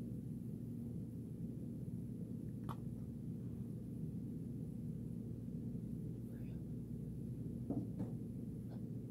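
Steady low background hum, with a sharp click about two and a half seconds in and a couple of faint knocks near the end.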